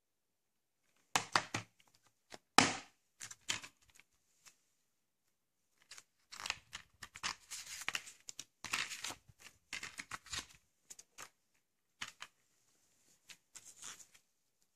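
Plastic DVD keep case clicking and snapping open with two sharp clacks, then paper inserts and leaflets rustling and crinkling as they are pulled out of the case and handled.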